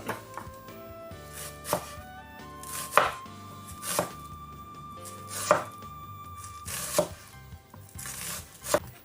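Knife cutting through a red onion, single slow strikes about every second, around seven in all, over soft background music.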